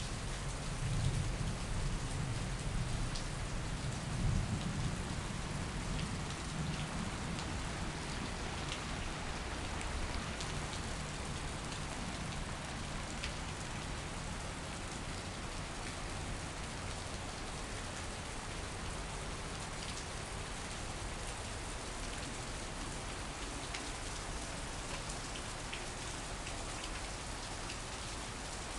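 Heavy rain falling steadily on paving, a street and garden foliage, with scattered sharp drips close by. A low rumble sits under the rain for the first few seconds, then fades.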